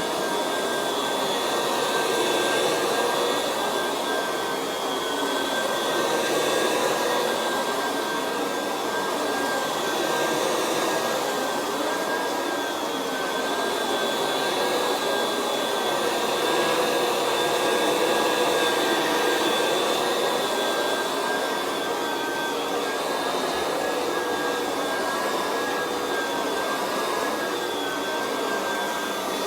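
Kirby Classic 3 upright vacuum running steadily with a buffer brush roll fitted, a high whine over a rushing hiss, swelling and easing a little as it is worked over carpet.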